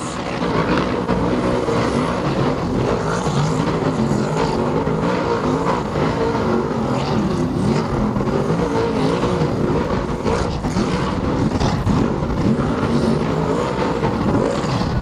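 Racing stock car engine revving hard as the car spins doughnuts, its pitch rising and falling over and over.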